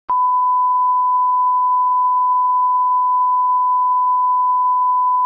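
Steady 1 kHz sine test tone, the reference tone that accompanies SMPTE colour bars, starting with a brief click.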